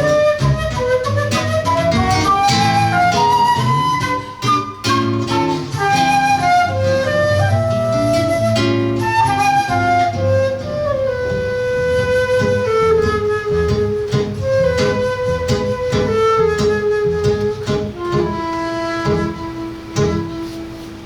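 Live acoustic music: a flute plays a flowing melody over a plucked guitar accompaniment.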